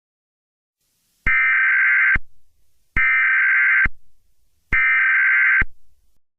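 Emergency Alert System SAME header tones: three identical bursts of buzzy digital data, each just under a second long with short gaps between, starting about a second in. This is the encoded header that opens an EAS alert.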